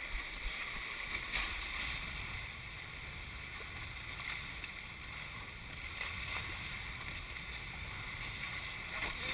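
Hobie 21SE catamaran hulls cutting through choppy water at speed: a steady rush and hiss of wash and spray, mixed with wind.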